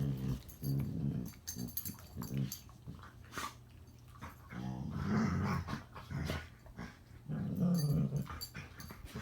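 Two dogs play-growling at each other: low growls in short bursts at first, then longer bouts about five and eight seconds in, with scattered sharp clicks between them. These are the sounds of gentle play, not a real fight.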